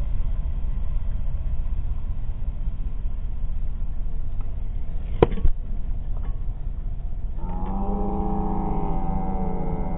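Steady wind rumble on the GoPro microphone. A little past halfway, an arrow from a compound bow hits the baseball on the tee with one sharp crack, followed by a smaller knock. Near the end, several wavering pitched tones begin.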